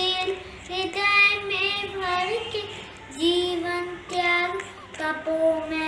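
A young boy singing solo, unaccompanied, in long held notes with short breaks between phrases.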